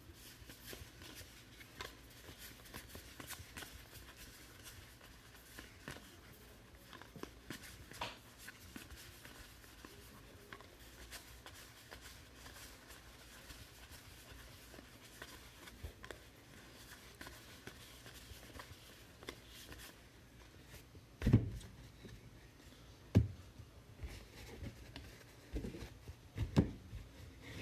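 Trading cards and packs being handled and sorted: faint rustling and light clicks, with a few sharp knocks on the table late on.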